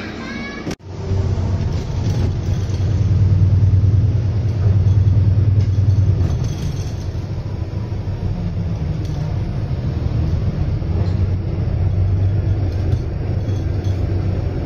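City bus interior while riding: steady low engine hum and road rumble, starting abruptly about a second in.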